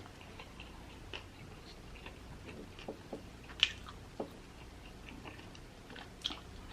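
Close-up chewing and biting of crispy fried chicken wings: soft wet mouth sounds with scattered small crunches and clicks, a sharper one about three and a half seconds in.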